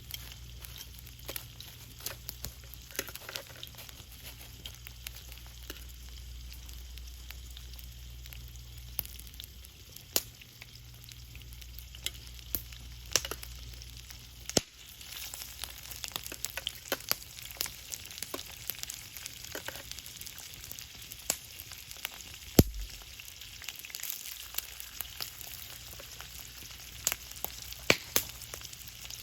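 Wood fire burning, crackling with a steady hiss and irregular sharp pops, a few of them louder, about 23 and 28 seconds in. A low hum underneath stops suddenly about halfway through.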